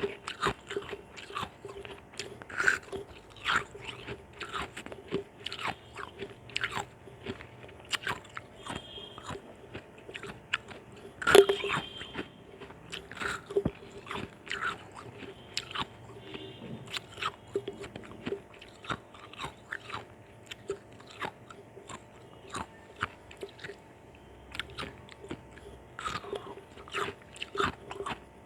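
Ice chunks being bitten and chewed close up: a continuous run of sharp crunches, a few each second, with one loudest crunch about eleven seconds in.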